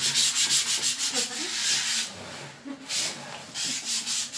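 Hand sanding of a gesso-primed board with sandpaper: quick back-and-forth rubbing strokes, with a short pause about two seconds in.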